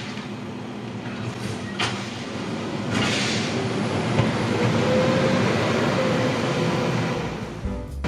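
Automated side-loader garbage truck running, with a sharp clunk about two seconds in as its arm sets the emptied cart back down, then its engine getting louder about three seconds in as the truck pulls away. Music starts right at the end.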